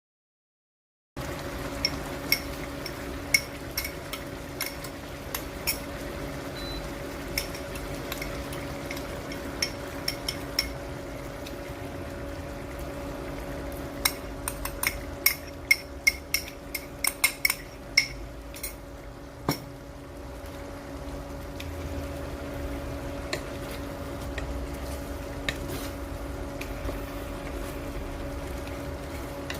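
A cooking utensil stirring in a pot, with repeated sharp clinks and scrapes against the pot, in a dense cluster about halfway through. A steady hum runs underneath. The sound starts abruptly about a second in.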